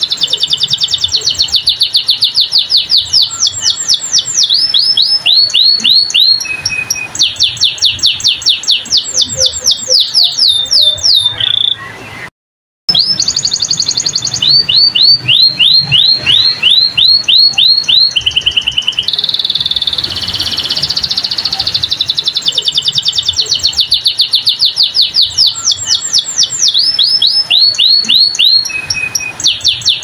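Domestic canary singing a long, continuous song of fast repeated sweeping notes, switching to a new trill every second or two. The song breaks off briefly about twelve seconds in.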